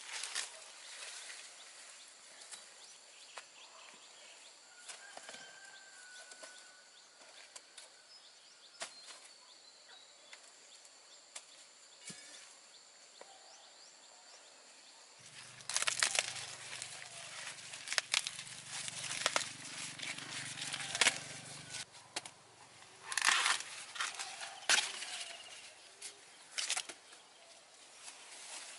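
Rustling and crackling from handling dry material, louder and denser from about halfway through. A low steady hum runs beneath it for several seconds after it picks up.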